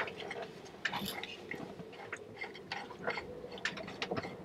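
Irregular small clicks and taps of hands and tools working the fittings around the third fuel filter on a Westerbeke marine diesel engine, loosening it to pull the filter out.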